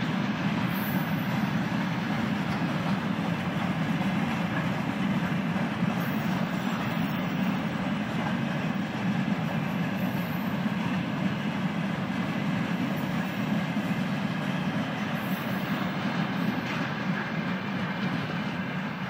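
Freight train of loaded flatcars and tank cars rolling past, its wheels running steadily over the rails in an even, unbroken rumble.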